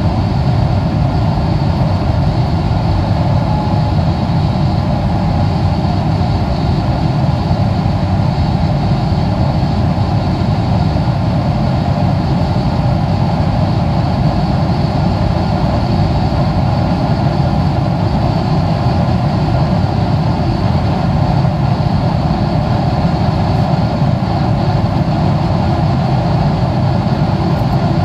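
Steady cabin noise of a Boeing 777-300ER in flight, heard from a window seat: the low drone of its GE90 engines mixed with rushing air along the fuselage, even and unbroken, with a faint steady whine above it.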